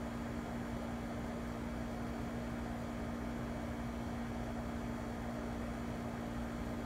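Swimming pool pump motor running with a steady, unchanging hum over a soft rushing noise.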